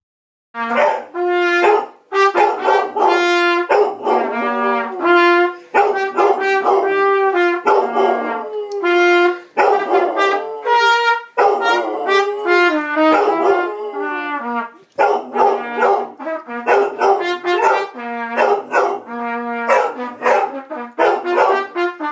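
A basset hound howling along to a trumpet, which plays a run of short held notes in phrases.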